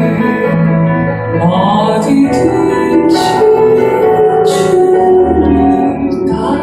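Worship song: singing over piano and keyboard accompaniment.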